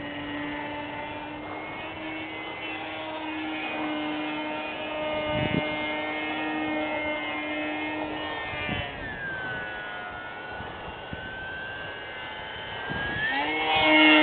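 Whine of an RC aerobatic plane's Hacker A20-26M brushless electric motor and propeller in flight. The pitch sinks about nine seconds in, holds low, then rises sharply near the end as the plane passes close and climbs, where it is loudest. A few soft thumps fall in the middle.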